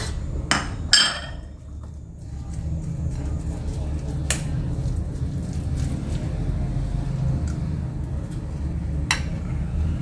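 Kitchenware clinking: two sharp knocks in the first second, then a steady low hum with a couple of faint clicks.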